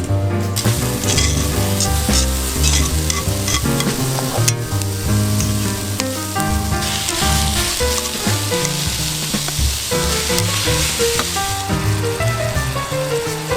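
Food sizzling and frying in a pan, the hiss growing thicker about halfway through, under background music with a melody of changing notes.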